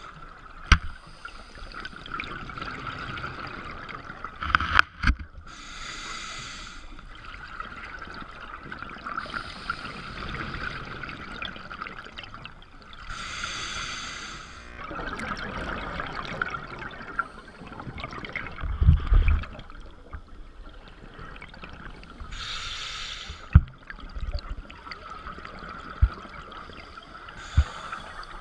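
Scuba regulator breathing heard underwater: bursts of exhaled bubbles hiss every few seconds over a steady underwater hiss. A few sharp knocks come through as well.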